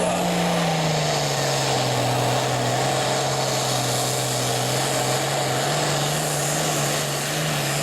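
Super Farm class pulling tractor's diesel engine running hard at high revs. Its pitch drops a little about half a second in, holds steady, then edges up again near the end.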